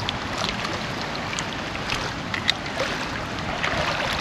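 Small waves lapping against a stony shoreline, with wind on the microphone. A few faint, short clicks sound through it.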